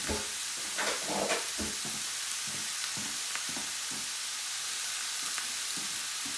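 Raw beef mince dry-frying in a hot frying pan: a steady sizzle, with soft knocks and scrapes in the pan now and then, busiest about a second in.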